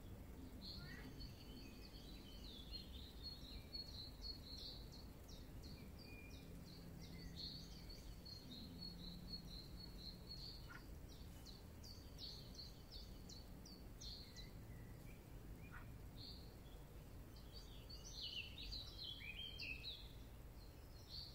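Faint outdoor background with small songbirds chirping: rapid series of short, high notes, growing busier a couple of seconds before the end, over a low steady rumble.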